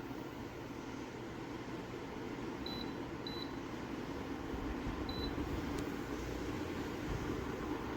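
Dreo PTC ceramic space heater's fan blowing steadily, with three short high beeps from its control panel: two close together about three seconds in and a third a couple of seconds later.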